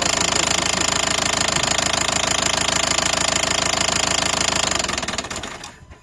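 Nissan Qashqai 1.5 dCi four-cylinder diesel engine running with a rapid, even knock. The mechanics suspect a spun connecting-rod bearing may be behind it. The sound fades out and stops shortly before the end.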